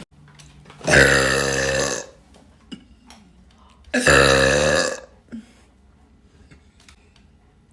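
A woman burping: two long, loud burps, each about a second long and about three seconds apart, with a few faint clicks between them.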